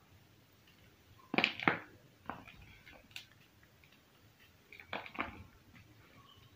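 Hands crushing slabs of black-dyed gym chalk covered in cornstarch powder: crunching and crumbling in two main bursts, about a second and a half in and again about five seconds in, with a few lighter crumbles between.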